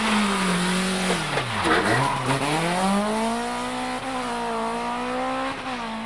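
BMW 318 iS rally car's four-cylinder engine at full effort. The revs fall steeply to a low point about a second and a half in as the car slows for the corner. They then climb again as it accelerates away, running high with two brief dips at gear changes.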